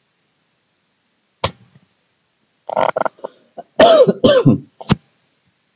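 A man coughing twice, the coughs the loudest part, after a softer throaty sound. There is a short sharp click before and after them.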